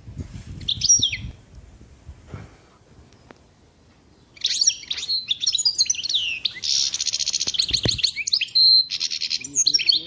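A songbird singing: a short chirping phrase about a second in, then from about four seconds in a loud, varied song of rapid chirps, whistles and fast trills.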